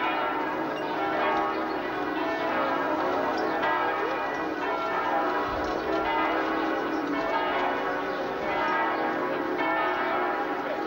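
Church bells ringing, many overlapping strokes sounding on without a break.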